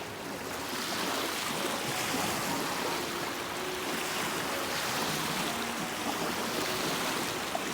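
Small lake waves washing on the shore: a steady rush of water with no break.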